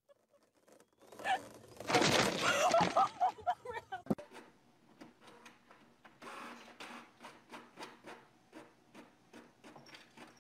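A loud, clattering burst with a voice in it, cut off suddenly about four seconds in. Then a Canon inkjet printer running as it prints a sheet, with a low hum and ticking a few times a second.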